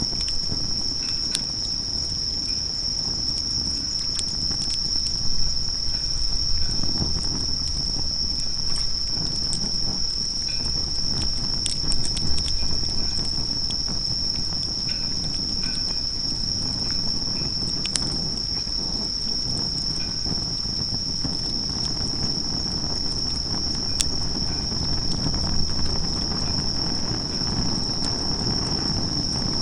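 Steady, unbroken high-pitched insect chorus, crickets by their sound, with scattered sharp crackles from a wood fire and a low rumble underneath.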